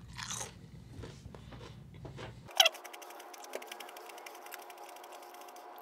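Faint chewing of a bite of raw orange tornado pepper, a Scotch bonnet–type chili, with soft wet mouth clicks and one sharp click about two and a half seconds in.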